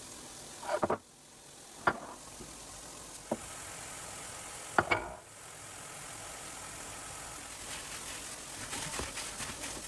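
Kitchen work sounds: a few separate sharp knocks and clinks of cookware or utensils, then a stretch of fine crackling near the end.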